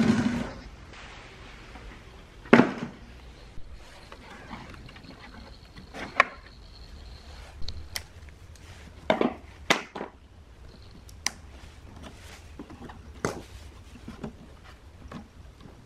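Scattered knocks and clacks of hands handling a dusty plastic subwoofer cabinet and tugging at the wiring inside. The loudest knocks come at the start and about two and a half seconds in.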